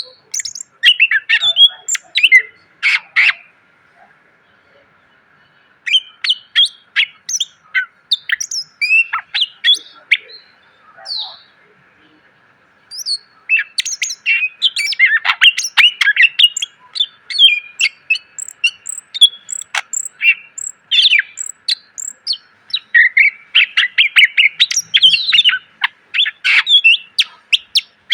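Green leafbird (cucak ijo) singing a fast, varied song of chirps, whistles and chattering phrases full of mimicked fill-in calls, in long bursts broken by two short pauses. A faint steady hiss sits under the song.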